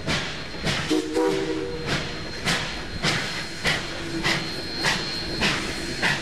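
Texas State Railroad #400 steam locomotive working, its exhaust chuffing in an even beat a little under two a second. There is a short whistle blast of several notes together about a second in.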